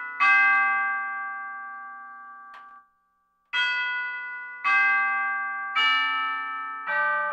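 Electronic keyboard playing a tubular-bell chime voice: struck chime tones ringing out and fading, five strikes, the first ringing alone for a few seconds and the last four coming about a second apart.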